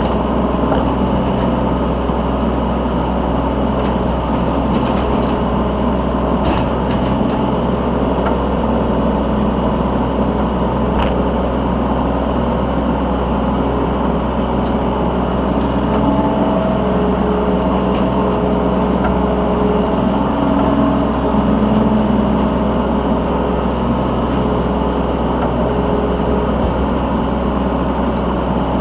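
Yanmar B3Σ 3-ton mini excavator's diesel engine running steadily under load from the operator's seat, with hydraulic whining tones that shift in pitch as the boom and bucket are worked. A few faint clicks.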